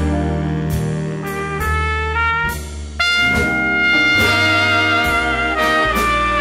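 Small swing big band playing an instrumental passage, with the brass section (trumpets to the fore) holding notes over a bass line and regular cymbal strokes. A brighter, louder brass passage comes in abruptly about three seconds in.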